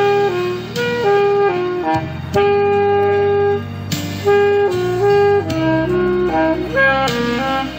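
A woodwind instrument plays a melody note by note, some notes held, over a steady lower accompaniment.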